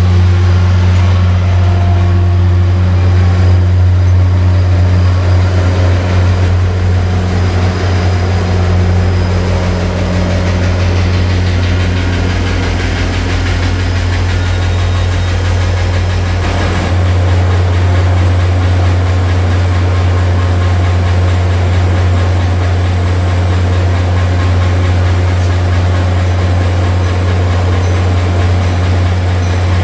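Caltrain MP36 diesel-electric locomotive running close by: a loud, steady low engine drone. The deepest rumble falls away a little past halfway.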